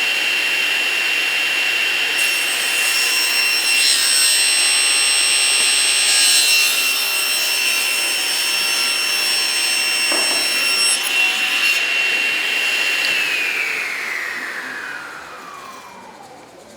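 Table saw running at full speed with a steady high whine while its blade cuts through wood for several seconds. Near the end the saw is switched off and the whine falls steadily as the blade spins down.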